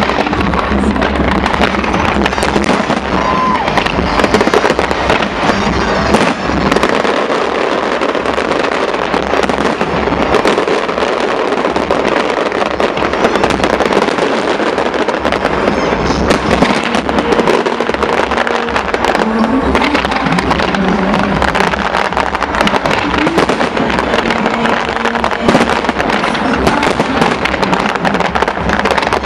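Big fireworks display: dense, overlapping bangs and rapid crackling of many shells going off at once, continuing without a break. A heavy low rumble under it drops away about six seconds in and comes back near the end.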